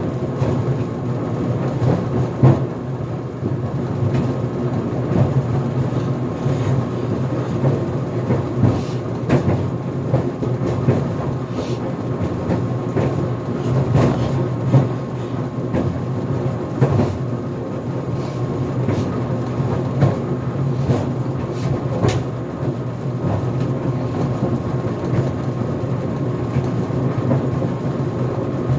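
GE Profile Harmony clothes dryer running on its cooldown tumble: a steady drum rumble broken by irregular bangs every few seconds. The owner is not sure what is causing the banging.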